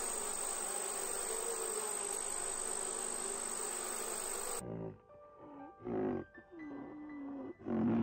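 Honeybees buzzing steadily at a flower, stopping abruptly a little past halfway. A series of short, pitched animal calls with bending pitch follows, including one held note, with the loudest call at the end.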